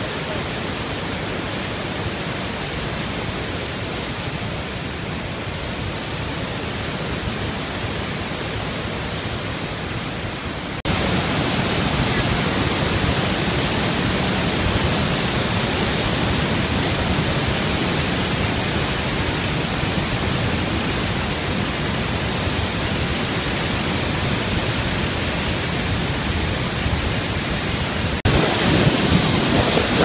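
Iguazu Falls rushing: a steady, even waterfall noise that jumps abruptly louder and brighter about a third of the way in, and again just before the end.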